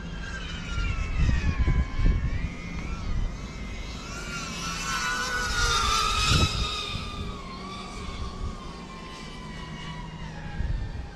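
Small FPV quadcopter's brushless motors whining, the pitch rising and falling with the throttle and loudest about six seconds in as the drone passes close. Low rumbles break in about a second in and again briefly near the loudest moment.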